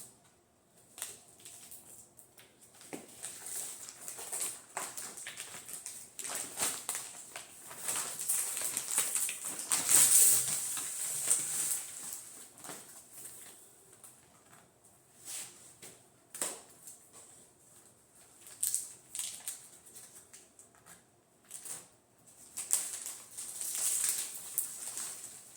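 Plastic wrapping crinkling and rustling as it is pulled and crumpled off a rolled rug, in irregular crackling bursts, loudest about ten seconds in.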